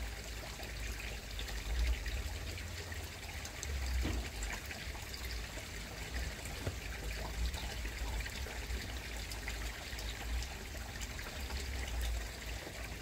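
Pond water trickling steadily, over a low rumble that rises and falls.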